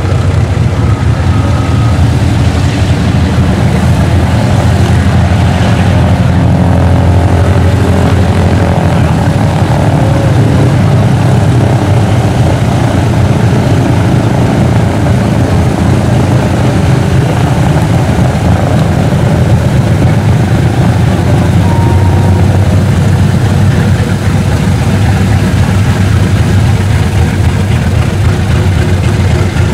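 Boeing B-29 Superfortress taxiing and turning, its four Wright R-3350 radial engines and propellers running at taxi power: a loud, steady, deep drone.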